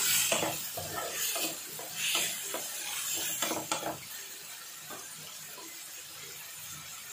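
Chopped onions and tomatoes sizzling in a non-stick kadai as they are stirred with a wooden spatula, which scrapes and knocks against the pan for the first four seconds. After that only a quieter, steady sizzle remains.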